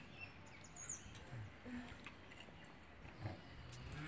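Quiet outdoor background with a few faint soft clicks and rustles from banana flower florets being handled; a cow's low moo begins right at the end.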